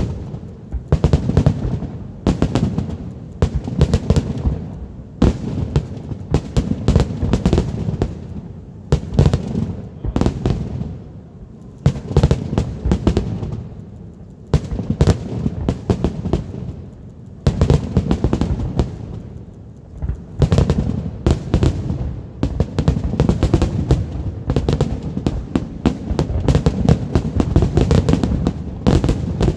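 Fireworks display: rapid, many-layered bangs and crackles over low rumbling booms, nearly continuous, with a couple of short lulls.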